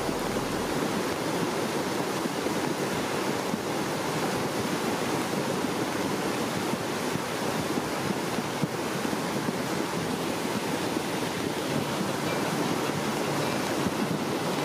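Swollen, muddy river in full flood after a heavy thunderstorm downpour, its water rushing and churning in a steady, unbroken roar.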